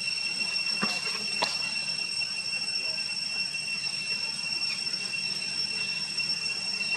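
Steady high-pitched drone of insects holding two pitches, with two short sharp sounds about a second in.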